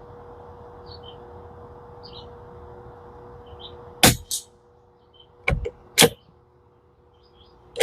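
Sharp metallic clacks from a Tikka T1x bolt-action .22 rifle being handled as a new magazine goes in: a double clack about four seconds in, two more around five and a half and six seconds, and another near the end. Birds chirp faintly in the background.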